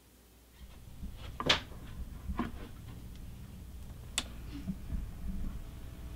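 Portable suitcase record player being handled as a record spins: a few sharp clicks and knocks from the tonearm and controls, the loudest about one and a half seconds in and again about four seconds in, over a low rumble from the turning platter.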